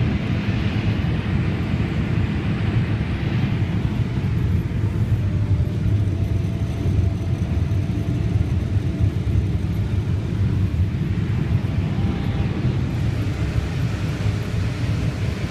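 Combine harvester running steadily while picking corn: a constant low drone of engine and header machinery, heard from inside the cab.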